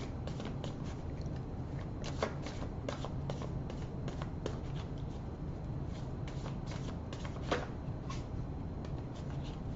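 Tarot cards being shuffled by hand: a run of irregular light card clicks and flicks, with a couple of sharper snaps about two seconds in and again past seven seconds.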